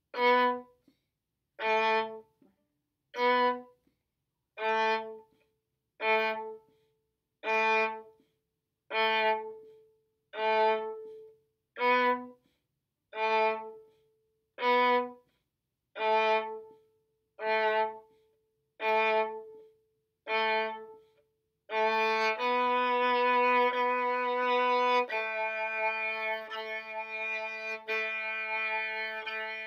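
Solo violin bowed at a slow practice tempo: short, separate notes about a second and a half apart, each followed by a rest. About 22 seconds in, the playing changes to longer, connected bowed notes.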